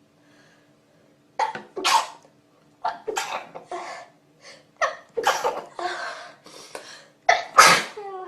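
A person making a rapid run of short, sharp, breathy vocal bursts like sneezes or coughs, about a dozen in seven seconds, starting about a second and a half in.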